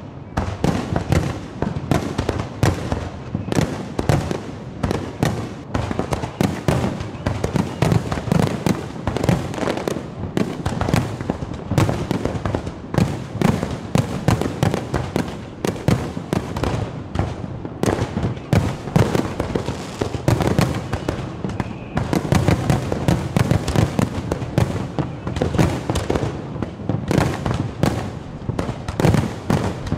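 Large aerial fireworks display: shells bursting in a dense, unbroken barrage of several bangs a second.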